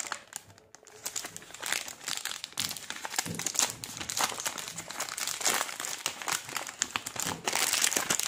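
Clear plastic packet with a paper-backed edge crinkling and crackling as hands pull it open and handle it, in irregular crackles that grow thicker near the end.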